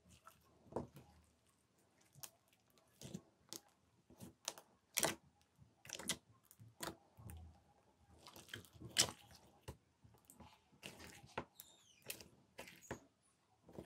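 Glossy slime with small foam beads kneaded and pressed by hand, giving irregular wet, sticky pops and clicks about once or twice a second, with a short squeak near the end.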